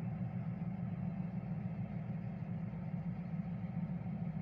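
Steady low engine hum heard from inside a car cabin.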